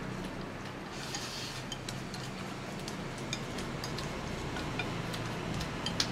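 Chopsticks clicking lightly and irregularly against porcelain rice bowls as people eat, over a steady low hum.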